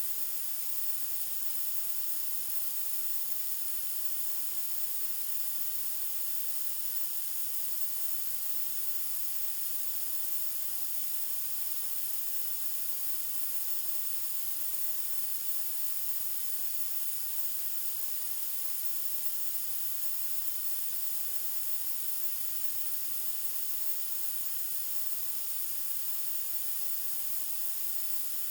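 Steady white noise: an even, unbroken hiss, strongest in the high end.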